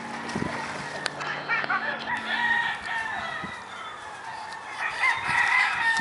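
Roosters crowing, with a long crow starting about five seconds in.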